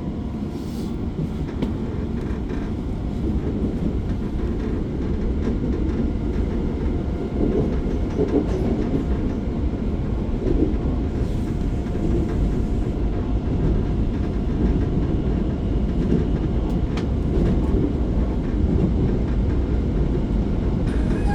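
Running noise heard from inside a moving subway train car: a steady low rumble of wheels on rails, growing slightly louder over the first few seconds.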